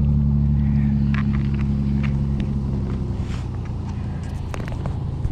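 A motor engine running nearby: a steady low hum that fades after about three seconds. A few light clicks and knocks sound over it.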